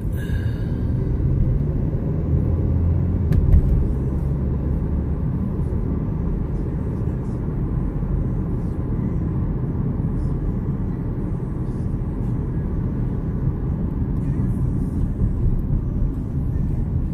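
Steady low road and engine rumble heard from inside a moving car's cabin, with a single bump about three and a half seconds in.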